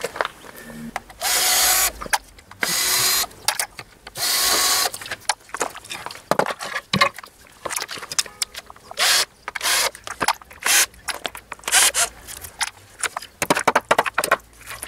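Cordless drill-driver run in three bursts of about a second each, backing screws out of the panels around a concrete step, followed by a string of short sharp knocks and clinks as a hammer and prying tool work at the step's edge.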